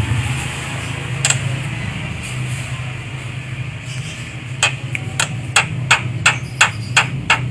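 Javan myna giving a run of short, sharp clicking calls, about three a second, starting a little past halfway through, with a single click earlier on. A steady low hum lies underneath.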